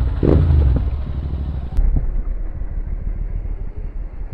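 Royal Enfield Interceptor 650's parallel-twin engine running steadily as the bike is ridden, a dense low rumble with road noise and a few louder bursts in the first second.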